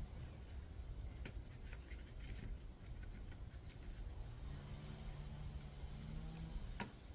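Low steady rumble with a faint engine hum that comes in about halfway through, and two light clicks, one early and one near the end.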